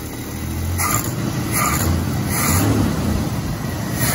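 1986 Dodge D150's 225 slant-six engine running on a freshly installed new-old-stock carburetor, just after a quick start. Its sound swells and eases a few times, as if the throttle is being blipped.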